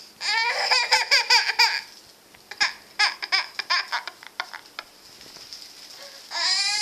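A toddler laughing and crying at once: a run of quick, high-pitched laughs in the first two seconds, then a second, fainter run of shorter bursts, and a long wavering wail that starts near the end.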